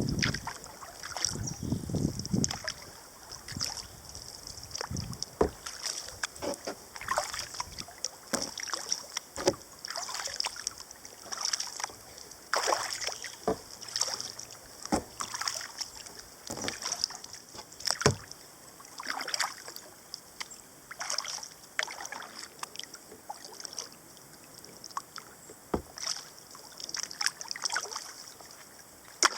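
Kayak paddle strokes: the blades dip into the river and splash again and again, about one stroke a second, with water dripping off the paddle between strokes.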